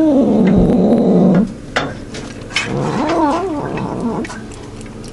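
Domestic cat making moaning growl-yowls while eating wet food from a tin can, a possessive noise over its food. One long call rises and falls in the first second and a half, and a shorter wavering call comes about three seconds in, with small sharp clicks of eating from the tin between.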